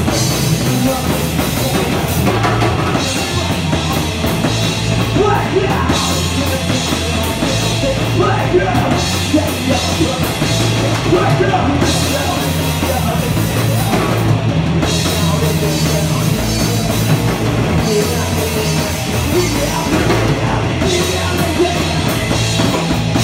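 Rock band playing a song loud, driven by a full drum kit.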